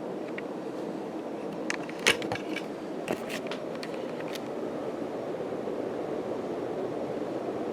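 Casablanca Delta II ceiling fan running on high, a steady rush of moving air. A handful of sharp clicks and rattles come about two to four seconds in.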